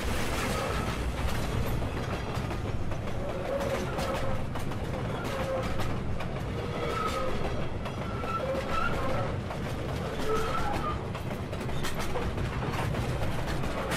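Steady low rumble with a constant noisy hiss, scattered clicks and short faint tones now and then.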